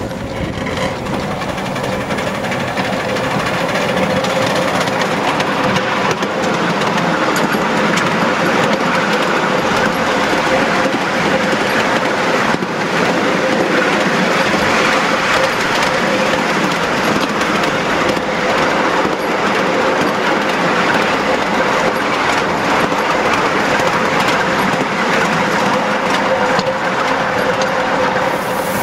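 Ride-on miniature railway train running along its narrow-gauge track, heard from one of its open wagons: a steady rolling noise of the wheels on the rails with a steady hum.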